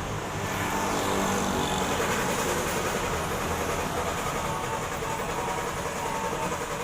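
Steady vehicle and engine noise, a continuous rumbling hiss with faint steady tones.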